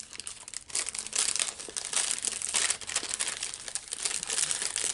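Plastic snack-bar wrapper crinkling and crackling as it is handled, in dense irregular crackles.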